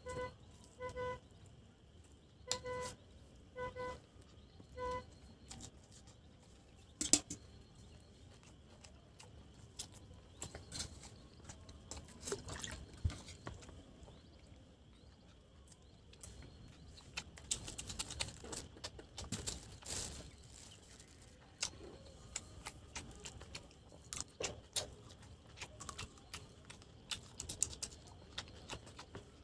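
Short pitched beeps, some in quick groups, stop about five seconds in. Then come scattered clicks, taps and scrapes of food being handled and eaten by hand, with one sharp click about seven seconds in.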